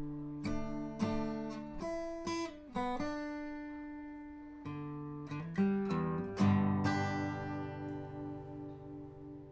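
Acoustic guitar music: picked notes and strummed chords, with a final chord struck about six seconds in and left ringing and slowly fading.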